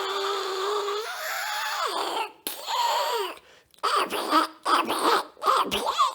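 A Donald Duck–style squawky duck voice, garbled and unintelligible, wavering in pitch. It runs continuously at first, then breaks into short rapid outbursts in the second half.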